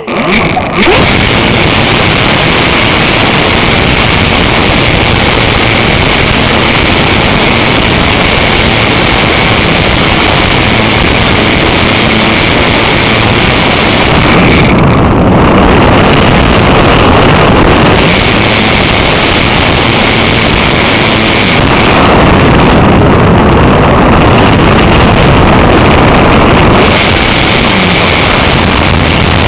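Electric RC model airplane's E-max 822 brushless motor and 9x5 propeller running at high throttle, heard through the onboard pen camera's microphone as a loud, steady rushing noise with a thin high whine. It comes in suddenly about a second in, and the hiss loses its top twice, around the middle and later on.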